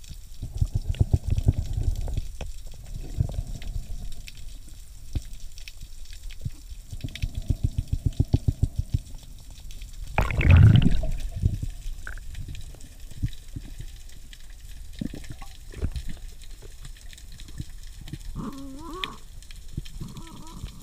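Muffled underwater sound heard through a camera housing during a kelp forest dive. There are two runs of rapid low pulses, about seven a second, and a louder rush about halfway through. A few short higher-pitched sounds come near the end.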